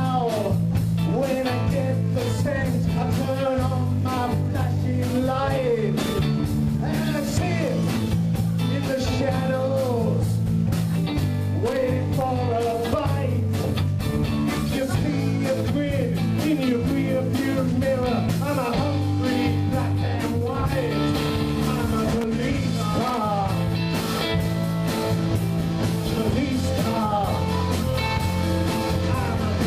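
Live rock band playing at a steady loud level: electric guitars, bass and drum kit, with a male singer.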